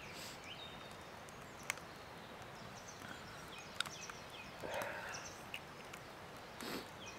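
Wood campfire burning quietly, with a few sharp, widely spaced pops.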